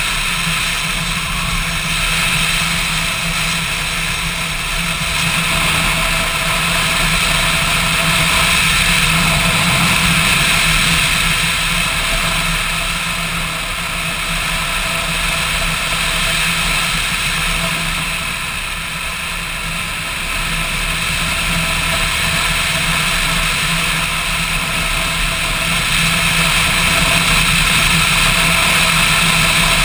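Motorcycle engine running steadily under the rush of wind as the bike rides along, easing a little quieter twice midway before picking up again.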